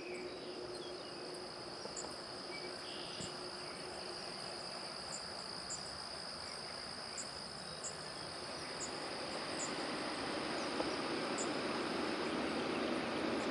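Insects trilling: a steady, unbroken high trill, with short higher chirps every second or so. A low rushing noise grows louder over the last few seconds.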